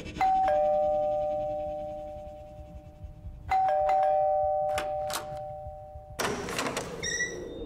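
Two-tone ding-dong doorbell chime rung twice, about three seconds apart, each time a higher note and then a lower one that slowly die away. A short noisy sound follows near the end.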